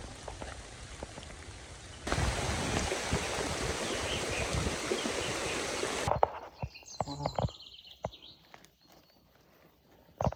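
Rain falling, turning suddenly heavier and denser about two seconds in. It then cuts off to a quieter stretch with scattered sharp knocks and clicks.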